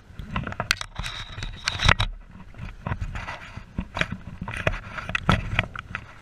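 Close rustling, scraping and clicking of a riding jacket being rummaged through by hand, its fabric and zip rubbing near the microphone. There is a denser stretch of scraping about a second in that stops suddenly.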